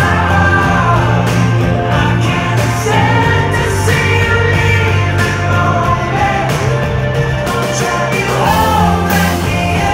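Live band playing loud pop-rock: a male lead vocalist sings over drums, bass and keyboards.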